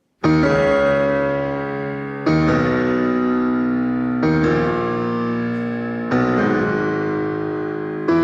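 Solo piano playing four loud, full chords about two seconds apart, each ringing on and slowly fading before the next is struck.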